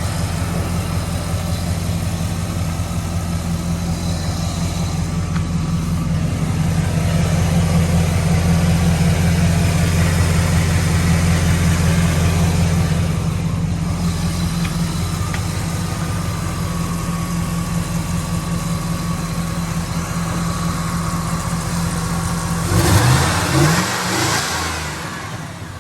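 A car engine running at a steady idle, revving briefly about 23 seconds in and then fading away.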